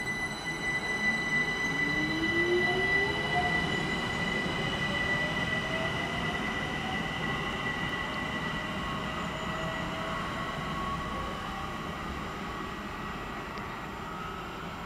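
ÖBB Talent electric multiple unit (Class 4024) pulling away, its traction drive whining and rising steadily in pitch as it accelerates, over a steady high tone and rolling rumble. The sound is loudest about two seconds in, then slowly fades as the train moves off.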